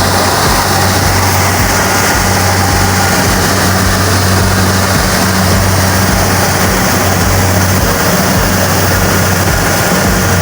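Rice harvester running steadily: a constant low engine hum under a loud, even mechanical rush.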